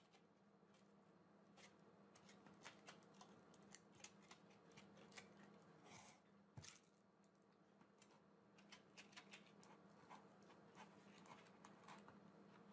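Faint scattered rustles and ticks of sandpaper being pressed, creased and tucked by hand under the back paper clamp of a Porter Cable 380 palm sander's base plate.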